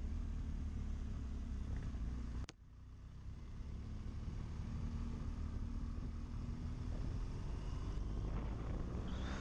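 Adventure motorcycle being ridden: steady engine and road-wind noise. A sharp click about two and a half seconds in, after which the sound drops sharply and then builds back up over a couple of seconds.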